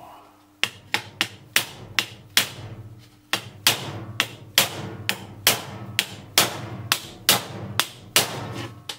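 Rubber mallet striking the dented, plastic-coated folded sheet-metal cover of an HP 3310B function generator, laid over an aluminium profile, to beat the dent out. About two blows a second, each with a short metallic ring, with a brief pause a little after two seconds in.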